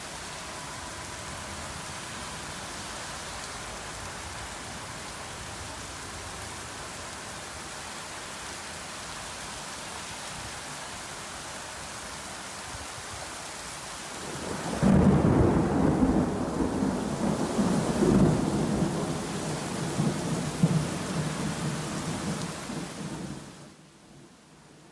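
Heavy rain hissing steadily on the road and pavement. About halfway through, a long, loud roll of thunder comes in and rumbles with uneven swells for about nine seconds. Near the end the sound drops off suddenly to a much fainter hiss of rain.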